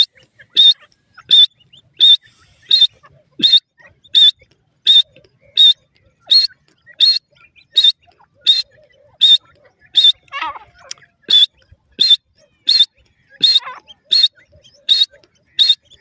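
Grey francolin calling: a steady, even series of short, sharp high-pitched notes, about one and a half a second. Twice in the second half a lower, falling call from another bird joins in.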